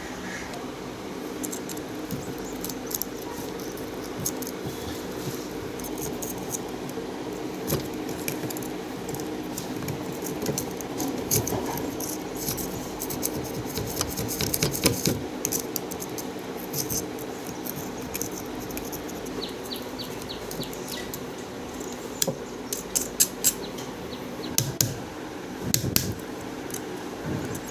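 Old ceiling fan running with a steady electric hum, over scattered light metallic clicks and rattles that come thicker in the last few seconds.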